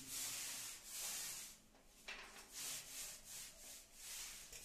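A hand tool rubbing against a wall in a run of short, faint strokes, about two to three a second, with a brief pause about two seconds in.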